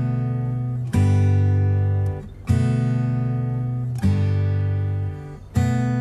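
Background music on acoustic guitar: chords strummed about every one and a half seconds, each left to ring out and fade before the next.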